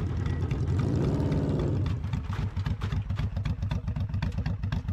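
Custom chopper built on a Suzuki GSX750S, its inline-four engine running through a fishtail exhaust. The pitch rises and falls once as the throttle is worked, then about two seconds in it drops to a low, steady pulsing run at low revs.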